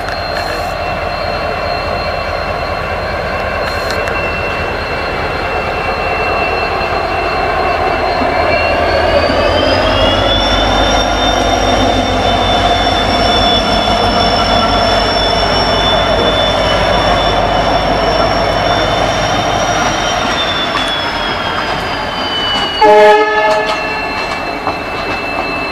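WDP4D diesel locomotive passing close by, its EMD two-stroke engine rumbling under a high-pitched whine. The whine rises in pitch about nine seconds in and falls back again near the end. A short horn blast sounds near the end.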